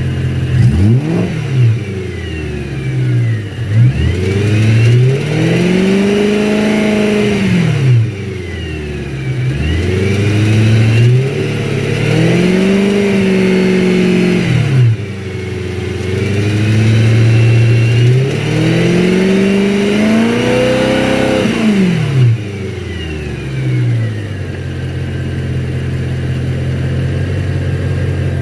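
BMW E92 M3's V8 engine idling and being revved: a few quick blips, then three longer revs that rise, hold for a few seconds and drop back to idle, and one more short blip near the end.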